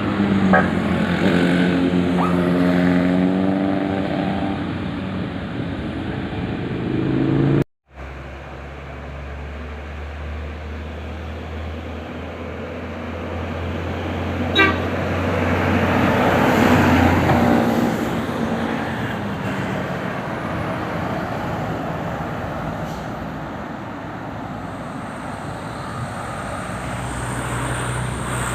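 A tour bus's telolet horn playing a tune in stepped musical tones. After a sudden break, a bus engine runs amid steady road traffic.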